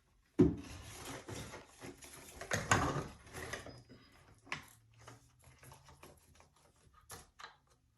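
Window blind headrail being handled and fitted into its mounting brackets: a sharp knock about half a second in, then scattered clicks, taps and rattles.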